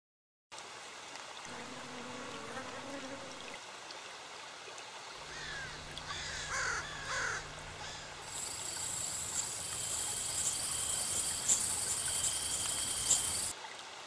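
Wild outdoor ambience: a few bird calls with quick gliding notes around six to seven seconds in, then a steady high-pitched hiss from about eight seconds that cuts off just before the end.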